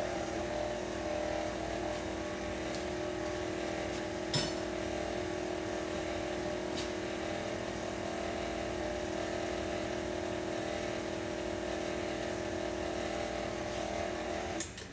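Stand mixer running steadily, its flat beater turning through cake batter with a constant motor hum, then switched off shortly before the end. One sharp clink about four seconds in.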